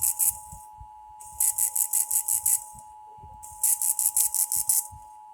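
Emergency Alert System SAME digital data bursts: harsh, rapidly pulsing buzzy bursts about a second long, repeating with about a second of gap between them. A faint steady two-tone hum runs underneath and stops near the end. These coded bursts are the machine-readable code that tags an alert.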